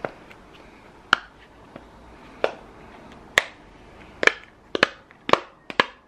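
Silicone bubbles of a simple-dimple fidget toy being pressed so they pop through, giving about ten sharp clicks at irregular intervals, with several in quick succession near the end.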